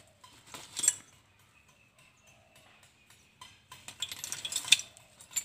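Hands rummaging in a sack: scattered light clinks and rustles. There is a sharp click about a second in, a quiet stretch, then a busier run of clinks near the end.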